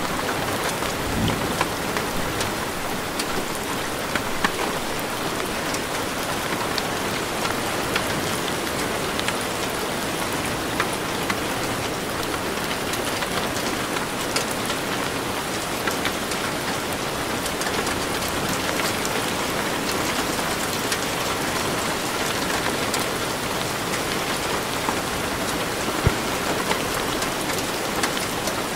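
Steady rain falling, an even hiss with scattered individual drop taps.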